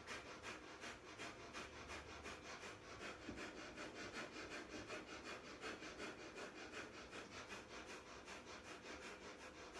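Faint Breath of Fire: rapid, rhythmic pumped breathing through the nose, at about three to four even puffs a second.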